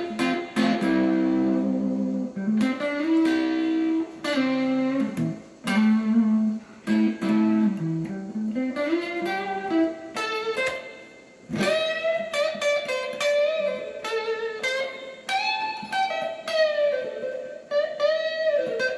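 1972 Gibson Les Paul Custom '54 reissue electric guitar played on its rhythm (neck) pickup alone: chords and low riffs first, then from about halfway higher single-note lead lines with held, bent notes.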